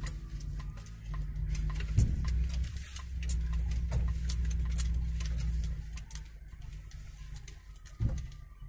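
Car driving on a rough road, heard from inside the cabin: a low rumble with irregular rattling clicks, and two heavier bumps, one about two seconds in and one near the end. The rumble eases after about six seconds.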